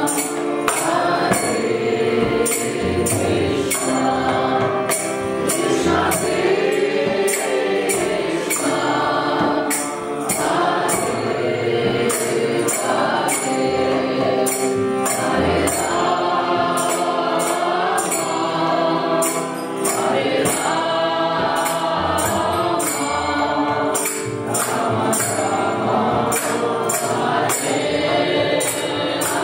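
Kirtan: a group sings a devotional chant together over a harmonium, with a steady beat of hand cymbals about twice a second.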